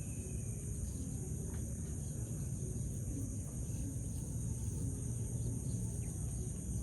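A steady, high-pitched chorus of insects, probably crickets, trilling without a break. A low, even rumble runs underneath.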